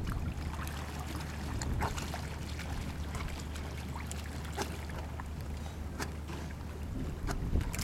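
Shallow seawater splashing and sloshing as stingrays crowd and thrash at the water's edge while being fed, with scattered sharp splashes.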